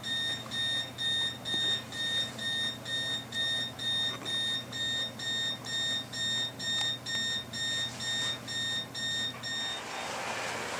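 A steady train of short, high electronic beeps, about two a second, while the speed-table values are being written into a model locomotive's DCC decoder. A low steady hum runs under the beeps, which stop about ten seconds in.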